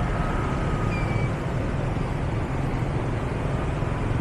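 Steady low rumble of city street traffic and road noise, with a faint short high tone about a second in.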